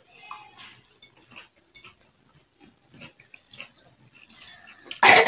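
Two people chewing and eating, with small clicks of a fork on a plate. About five seconds in, a short, loud rush of noise.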